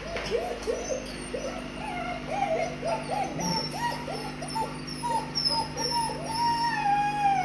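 Several White Swiss Shepherd puppies whining and whimpering: a quick string of short cries that rise and fall in pitch, about two or three a second, with thinner high-pitched cries over them.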